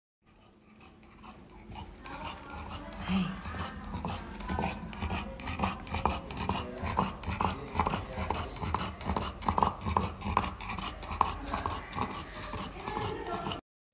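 A sick English bulldog panting hard with a rasping, snorting breath, a few breaths a second, growing louder over the first couple of seconds.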